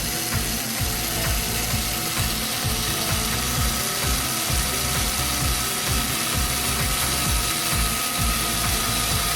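Rapid, continuous mechanical ratcheting clatter of a small mechanism, steady throughout, over faint background music.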